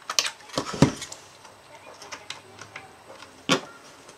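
Screwdriver turning screws into the metal case of an aircraft instrument: small metallic clicks and scrapes, with a louder knock about a second in and another sharp click a little before the end.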